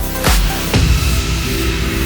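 Electronic background music: a steady beat of heavy strokes that stops about three quarters of a second in, giving way to held, layered tones.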